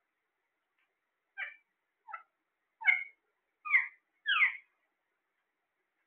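Caged ring-necked parakeets squawking: five short, harsh calls in about three seconds, each louder than the last.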